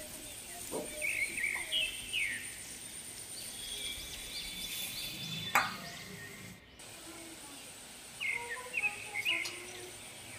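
Small birds chirping in short bursts in the background, with a thin steady high whine throughout and one sharp click about halfway through.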